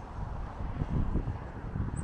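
Wind buffeting the microphone in irregular gusts, growing stronger about half a second in, over a steady hiss of road traffic.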